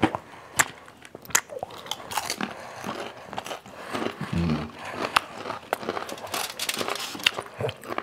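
Close-miked eating of crispy fried chicken: chewing and biting with many sharp, irregular crunches and crackles of the fried crust.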